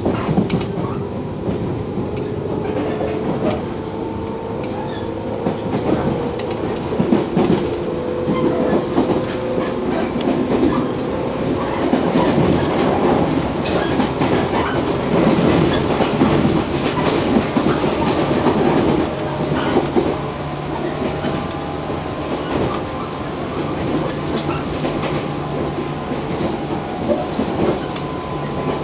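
Motor car of a JR West 115 series electric train heard from inside the cabin: its DC traction motors whine, the pitch rising slowly as the train gathers speed, over the running rumble and the clack of wheels on rail joints. A steady low hum joins about two-thirds of the way through.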